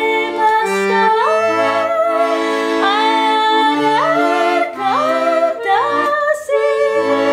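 A woman singing a melody that slides up into its notes and wavers on the long ones, over a piano accordion's held chords and changing bass notes.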